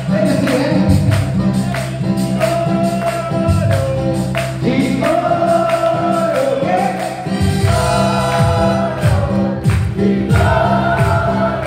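Live band playing loud amplified dance music: a keyboard, a bass, a steady percussion beat and singing.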